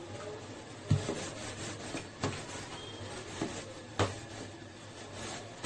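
Wooden rolling pin rolling over a thick sheet of biscuit dough on a round board: a low rubbing with a few short knocks.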